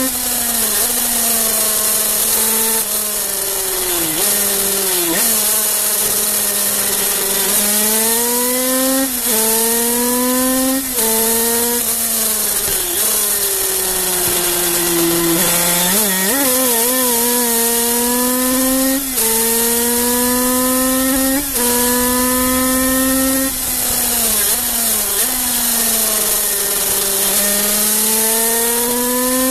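Kreidler 50cc two-stroke racing motorcycle engine at full throttle, heard from on board: a high-pitched note that climbs through each gear and drops sharply at every upshift. It falls away for longer stretches around the middle and again near the end as the bike slows for corners, then winds up again.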